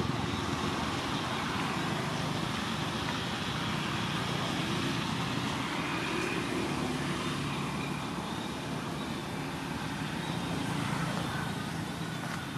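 Steady background hum of distant road traffic, with a low engine drone running throughout.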